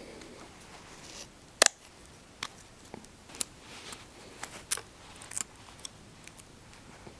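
Sharp plastic-and-metal clicks and snaps from an iPod Touch's replacement screen assembly being pressed into place. The loudest snap comes about one and a half seconds in, followed by a string of smaller irregular clicks.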